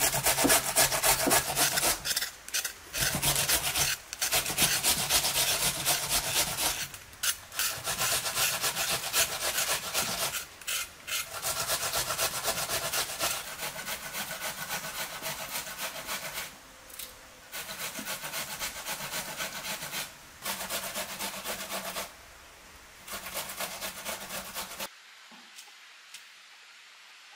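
Onion being grated on a metal box grater: quick rasping strokes in runs broken by short pauses, stopping near the end.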